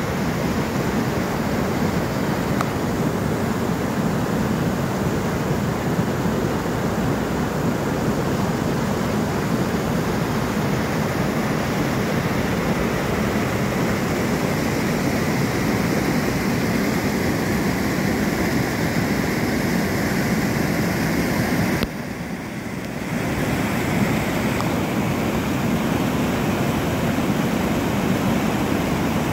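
River water rushing over a low weir at high water, a steady, unbroken rush of churning flow. It briefly dips in level about three-quarters of the way through.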